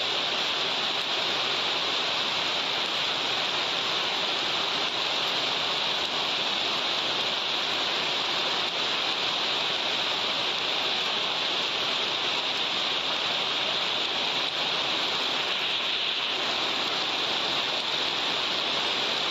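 Hail mixed with heavy rain falling on pavement: a dense, even hiss that holds steady throughout.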